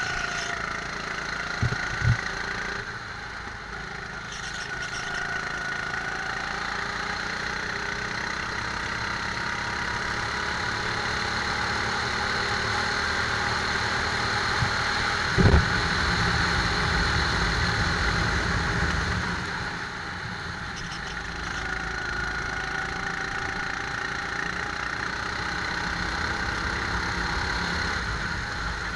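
Rental go-kart engine running under way, its note easing off and picking up again with the throttle. A couple of short thumps come about two seconds in, and a louder one about halfway through.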